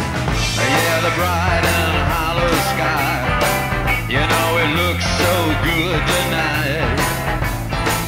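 Rock music with a steady drum beat, bass line and a wavering melody line.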